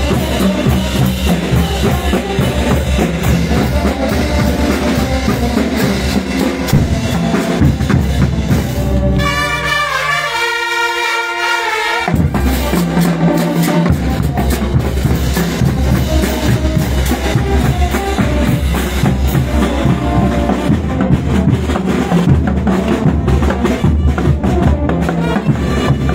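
Bolivian brass band playing cullaguada dance music live: brass with bass drum, snare drums and crash cymbals. The lowest notes drop out for a couple of seconds about ten seconds in, then come back.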